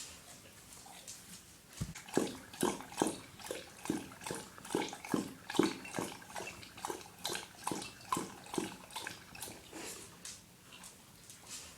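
A dog lapping water from a bowl, a steady rhythm of wet laps at about two to three a second, light at first and heavier from about two seconds in.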